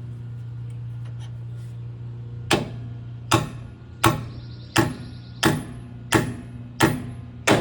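Hammer tapping a race installer tool to drive a repair bearing and seal combo into a GM 10-bolt rear axle tube: seven sharp, ringing strikes, about one every 0.7 s, starting about two and a half seconds in. A steady low hum runs underneath.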